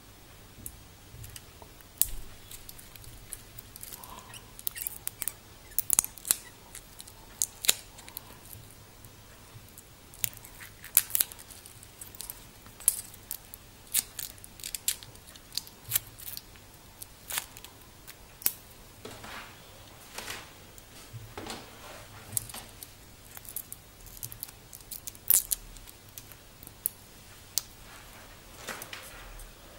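Protective plastic film being picked at and peeled off a stainless steel watch and bracelet by fingers and fingernails: an irregular run of sharp, crinkly clicks and ticks.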